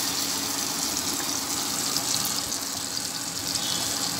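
A masala-marinated fish slice frying in sesame oil on a hot iron dosa tawa: a steady sizzle with small crackles.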